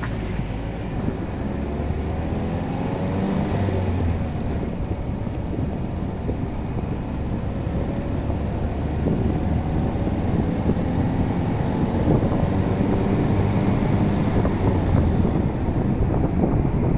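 Car driving on asphalt, heard from the car. The engine rises in pitch twice as it picks up speed, over a steady tyre rumble and some wind noise.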